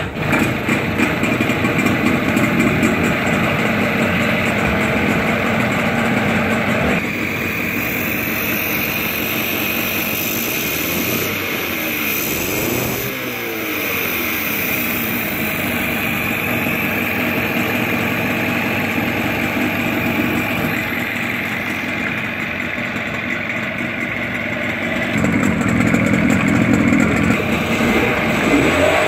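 Tohatsu M12A two-stroke outboard motor running in a test tank. Its pitch rises and falls briefly about halfway through. It gets louder near the end as the throttle is opened and the propeller churns the water.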